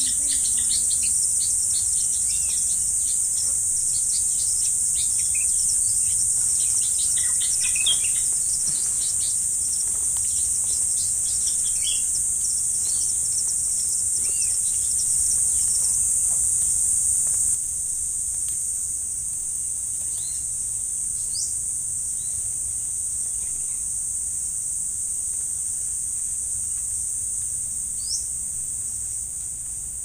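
Forest insects keeping up a steady high-pitched drone, with scattered short bird chirps over it. The drone drops in level a little past halfway, and two quick rising chirps come later.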